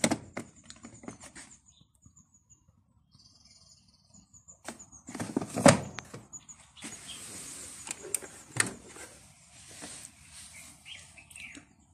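Handling noises: scattered clicks, a rustle and a sharp knock about five and a half seconds in, as the washing machine is handled and shown.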